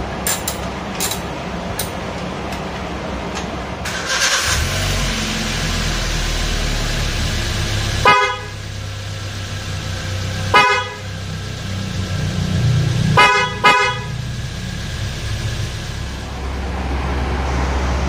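A pair of aftermarket Hella Midnight Black snail horns (a high and a low horn) on a Suzuki Splash, sounding four short blasts as a test after fitting, the last two in quick succession. A few sharp tool clicks come near the start.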